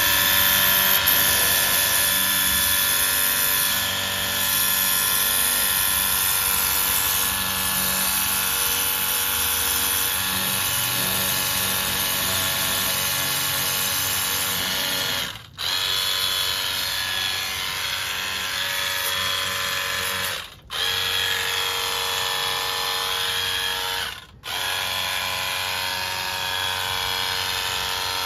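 Electric power tool, like a drill, running steadily at high speed. It cuts out briefly three times in the second half.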